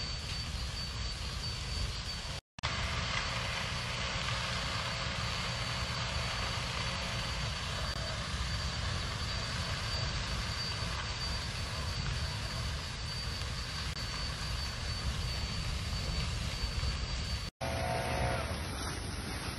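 Steady rushing rumble of wind and a grass fire buffeting a phone microphone, with a faint steady high whine above it. The sound drops out for an instant about two and a half seconds in and again near the end.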